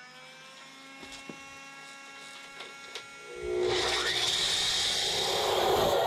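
Electric concrete saw's motor spinning at full speed with a steady whine, its pitch settling as it finishes running up. About three and a half seconds in, the blade bites into the concrete floor and a loud, rough grinding takes over.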